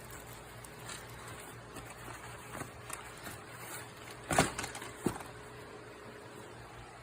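Mini split air conditioner's indoor unit fan running with a steady low hum and airflow hiss, blowing only room-temperature air in cooling mode because the outdoor unit is not running. A sharp knock about four seconds in and a smaller click a second later.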